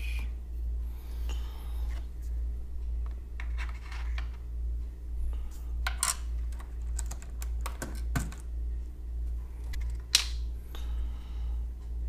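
Scattered clicks, taps and brief scrapes from a mechanical keyboard with its keycaps removed, being handled and cleaned. A steady low hum runs underneath, and the sharpest click comes about ten seconds in.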